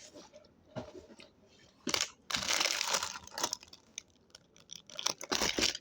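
Crinkling and tearing as bread is handled and unwrapped, in two main bursts: a longer one about two seconds in and a shorter one near the end.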